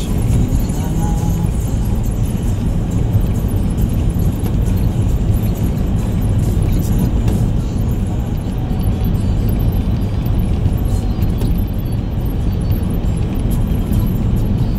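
Steady low rumble of engine and tyre noise heard inside the cabin of a moving 2010 Toyota Rukus with its 2.4-litre four-cylinder engine.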